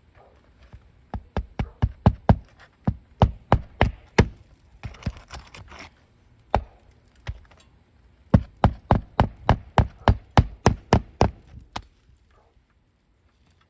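Hammer driving roofing nails under a lifted shingle: two quick runs of about a dozen blows each, three to four a second, with a few single knocks and a second of scraping between the runs.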